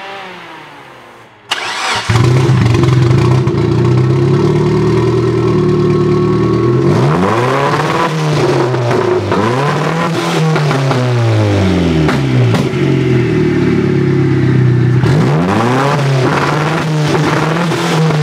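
Turbocharged Suzuki Forenza's four-cylinder 16-valve engine starting up about one and a half seconds in, then running with repeated throttle blips that rise and fall in pitch.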